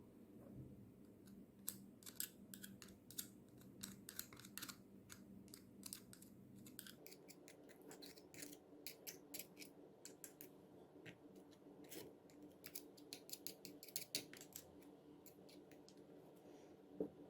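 Faint, irregular clicks and light taps of small parts being handled. A faint low hum underneath stops about seven seconds in.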